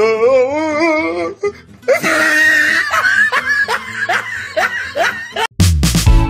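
A voice with a strongly wavering, wobbling pitch, then a few seconds of laughing in short repeated bursts. About five and a half seconds in, it cuts to loud background music with a steady beat.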